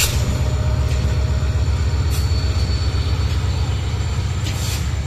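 Diesel-electric locomotive pulling a passenger train away from the station, its engine giving a heavy, fast-pulsing low throb, with a couple of brief hisses.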